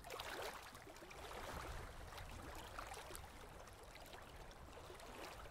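Faint background noise: a low rumble and a soft hiss with scattered small ticks, and no distinct event.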